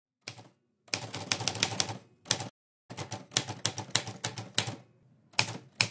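Typewriter typing sound effect: quick runs of key strikes separated by short pauses, the longest run nearly two seconds.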